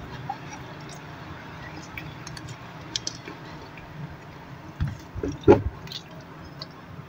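Close-up chewing of a chicken burger: soft, wet mouth sounds with small clicks. A few louder short knocks or smacks come just before and after five seconds in.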